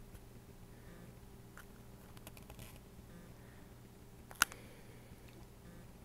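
Quiet room with a faint steady hum, a few soft clicks, and one sharp click a little over four seconds in.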